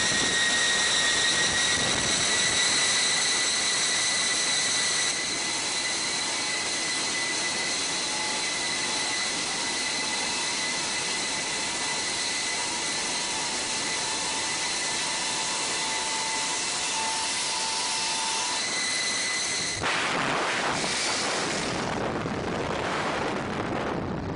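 Jet transport aircraft's turbofan engines running steadily, a loud rushing noise with a high turbine whine, heard from inside the cabin. About 20 seconds in the whine cuts out and a gusty rush of wind takes over as the parachutist falls clear of the aircraft.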